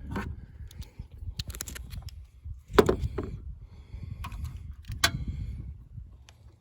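Handling noises from hands-on work in a car's engine bay: a few sharp clicks and knocks, the loudest about 3 s in and another about 5 s in, with lighter ticks over a low rumble.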